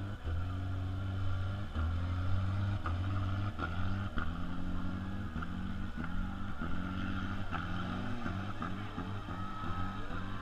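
Demolition derby car engines running hard, revving up and dropping again about once a second, with a few sharp knocks in between.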